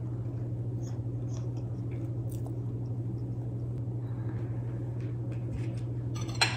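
Close-up eating sounds at a table: chewing and small clicks of a spoon and mug, over a steady low hum. One sharp click comes near the end.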